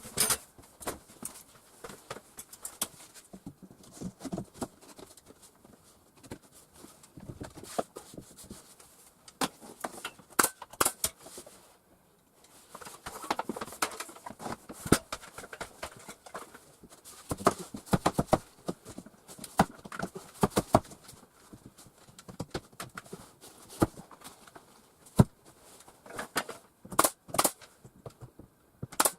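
Irregular sharp knocks and clicks of hand carpentry work, some in quick clusters, with quieter gaps between them.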